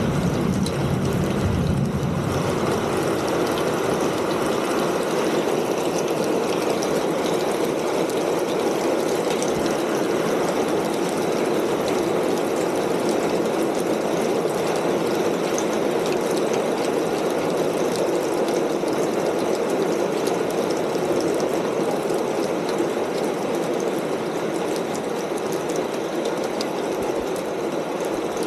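Rain falling on a corrugated metal roof, a steady dense patter. A low rumble fades out in the first couple of seconds.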